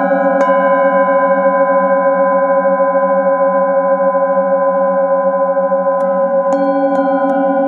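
Metal singing bowls ringing after being struck with a padded mallet: one strike about half a second in, then a long layered ring of several steady tones with a slow wavering beat, and a run of light quick strikes near the end.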